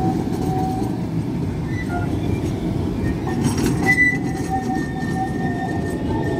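Tram running on its rails: a steady rumble with thin squealing tones from the wheels that come and go, and a short burst of clicking about three and a half seconds in.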